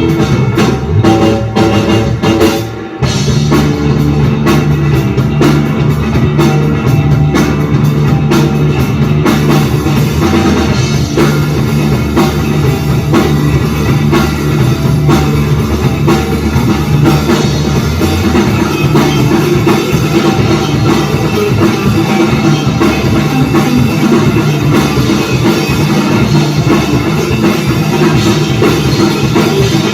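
Rock band playing live with drum kit and guitar. The band drops out briefly about three seconds in, then comes back in full, with the cymbals thickening about nine seconds in.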